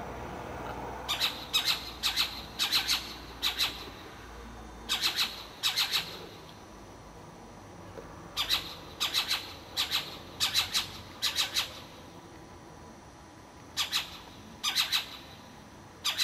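Owl giving short, harsh rasping screech calls, about seventeen of them in three bunches with pauses between.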